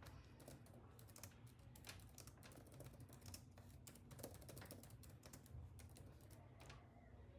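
Faint typing on a computer keyboard: a quick, irregular run of key clicks that stops shortly before the end.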